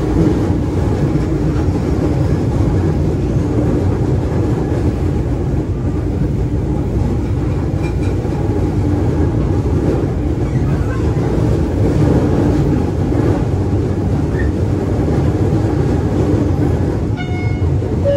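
KRL commuter electric train running, heard from inside the carriage: a steady rumble of wheels and running gear with a faint steady hum. A brief high tone sounds near the end.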